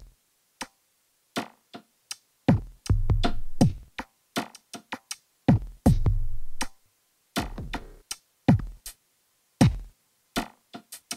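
Sparse, stop-start drum-machine beat: deep kicks that drop in pitch and short sharp hits, with gaps of silence between them and a low bass note held under a few of the hits.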